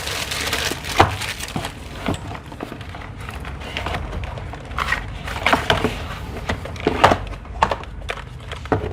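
Packaging being handled while a keyboard box is unpacked: irregular knocks, clicks and rustles of cardboard and plastic, with several sharper knocks between about five and seven seconds in.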